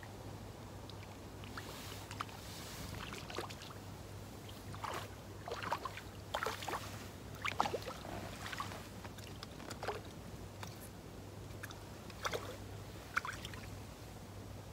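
A hooked roach splashing and thrashing at the water's surface as it is played in to the bank on a feeder rod: a run of irregular short splashes, busiest midway and with a last couple near the end.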